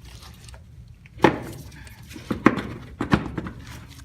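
Several knocks and clunks, a loud one about a second in and more in the second half, as a part is worked into place on the utility vehicle and catches on things.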